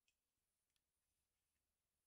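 Near silence, with two faint small clicks from hands handling thin wire on a small wooden board, one just after the start and one about three-quarters of a second in.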